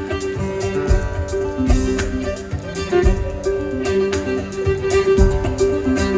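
Live folk band playing an instrumental passage: fiddle melody and strummed guitar over bass and a steady drum beat.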